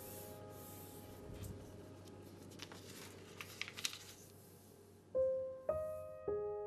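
Soft piano music, its notes fading out and three new notes struck about half a second apart near the end. In between, sheets of lined paper are slid and folded by hand, a run of crisp rustles and crackles in the middle.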